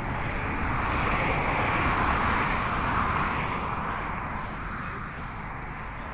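A car passing on a nearby road: tyre and road noise swells over a couple of seconds, then fades away.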